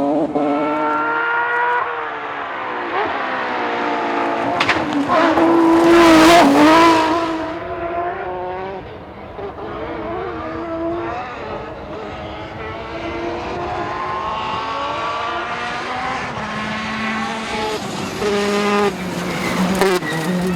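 Rally car engine at full throttle, its note rising and dropping through gear changes. It is loudest as the car passes close about five to seven seconds in, followed later by a long rising rev.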